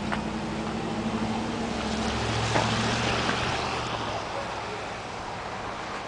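A motor vehicle passing close by: steady engine hum and road noise that build to a peak about halfway through and then fade.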